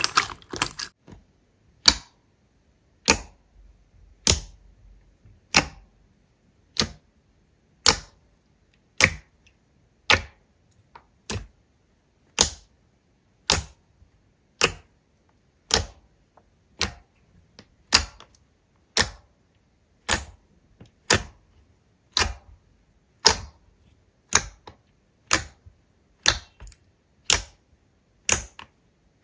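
Slime being pressed by hand, giving short, sharp pops about once a second, a few of them coming closer together near the end.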